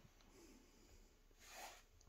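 Near silence: room tone, with a faint breath near the end.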